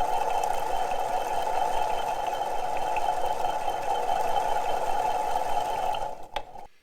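Crankshaft of a 1974 Yamaha DT250 two-stroke engine spinning steadily in its main bearings with a continuous whirring hum, winding down and stopping about six seconds in. The bearings sound a little loud, which the owner takes as a sign they may need replacing.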